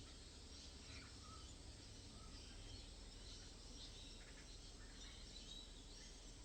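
Near silence: low background noise with faint, scattered bird chirps.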